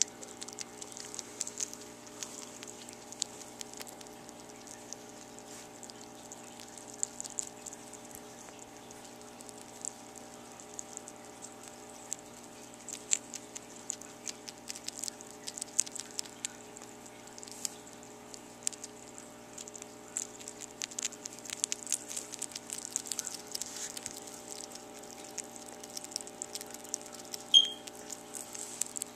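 Sugar gliders chewing mealworms close to the microphone: irregular small wet clicks and crunches throughout, with one louder sharp sound near the end.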